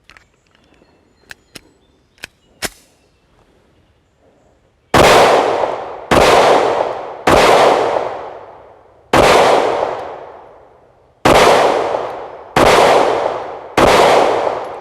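Remington R51 9mm pistol handled with a few small sharp clicks, then fired seven times with hollow-point rounds at an uneven pace, each shot trailing off in a long echoing decay.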